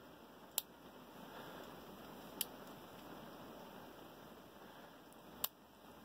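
Three sharp, faint clicks from a pick working the pins of a small brass Abus 55/40 padlock under tension: about half a second in, near two and a half seconds, and near the end, over a faint steady background hiss.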